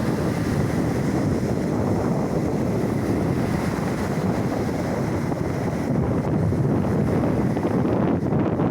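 Wind buffeting the microphone over the steady wash of Black Sea waves, an even rushing noise with no lull.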